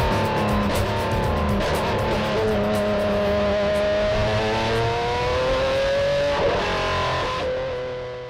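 Race car engine pulling hard, its pitch climbing steadily and dropping sharply at upshifts about two and a half and six and a half seconds in, under electric guitar music. Both fade out near the end.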